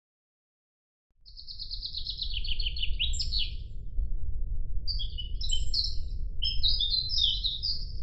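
Songbird singing, starting about a second in: a fast trill of repeated notes falling in pitch, then several shorter, varied phrases. A steady low rumble starts with it.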